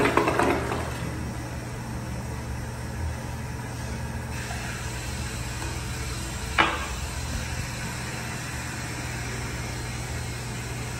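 The tail of an American Standard Cadet 3 toilet's flush dies away in the first second, leaving a steady hum. About six and a half seconds in, the toilet lid is lowered and clacks shut once against the bowl.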